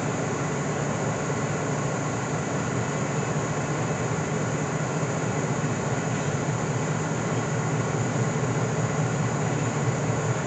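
Empty freight cars of a slow train rolling past: a steady rumble of wheels on the rails, getting a little louder near the end.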